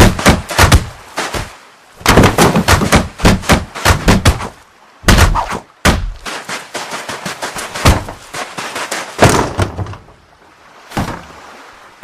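Cartoon sound effects of a wooden crate banging and jolting about: rapid clusters of knocks and thuds in several bursts with short pauses between, tailing off near the end.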